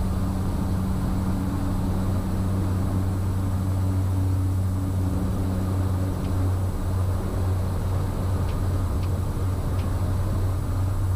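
Cessna 208 Caravan's turboprop engine and propeller running at takeoff power, a steady low drone with a constant hum, heard from inside the cockpit.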